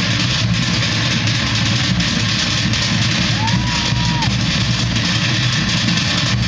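Loud live show music, dense and unbroken, with crowd noise mixed in; a short high held tone rises, holds and falls away about three seconds in.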